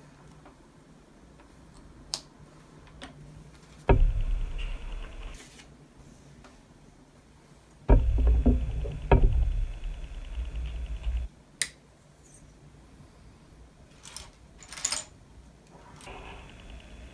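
Loose plastic LEGO bricks clattering on a table as a hand rummages through the pile, in two stretches, about four seconds in and again from about eight to eleven seconds. Between them come scattered sharp clicks of small pieces being picked up and pressed together.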